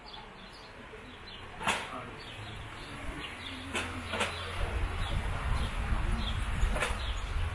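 Outdoor lakeside street ambience: a low rumble that swells from about halfway, faint bird chirps, and a few sharp knocks or clicks at irregular moments.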